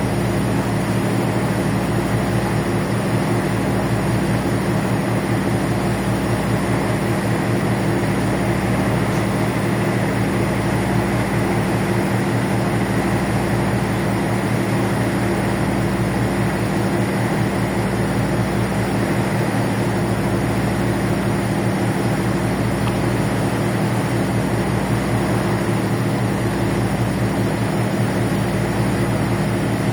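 Ferry's engines running with a steady low drone, the lowest notes throbbing slowly about every two seconds.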